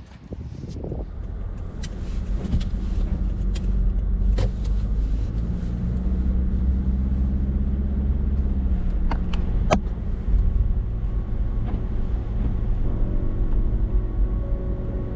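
A car driving, with a steady low rumble of engine and road noise and a few sharp clicks and knocks. Music comes in near the end.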